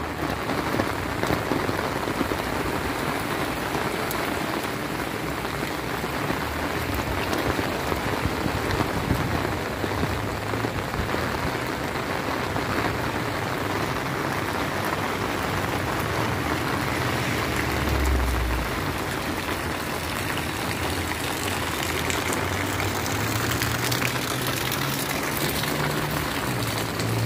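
Steady rain falling on paving and a wet asphalt street. Near the end, the low hum of a vehicle engine comes in under the rain.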